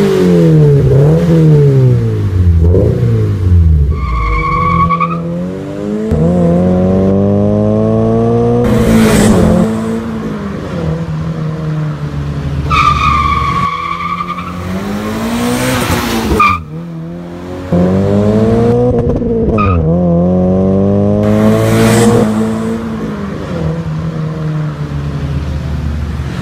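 Toyota 86's 2.0-litre flat-four through an aftermarket catback exhaust: first revved up and down in quick blips, then accelerating hard several times, its pitch climbing and dropping at each upshift as it passes. Short tire squeals sound about 4 and 13 seconds in.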